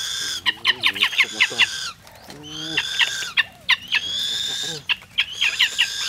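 Birds calling: high-pitched calls held for about a second at a time, alternating with quick runs of short sharp chirps, about seven a second. A lower, wavering cry comes in about two seconds in.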